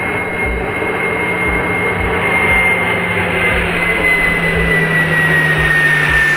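Electric ducted fan of a Freewing MiG-21 model jet whining steadily in flight as it passes low, its high whine dropping slightly in pitch over the last couple of seconds.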